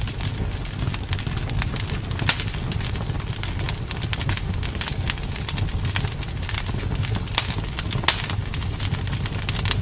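Wood fire in a fireplace crackling, with irregular small pops over a steady low rumble. A few louder pops come about two seconds in and near the end.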